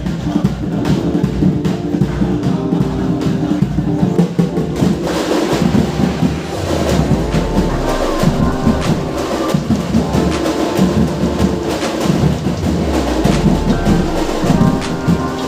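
Music with heavy, fast drumming and percussion under a sustained melody.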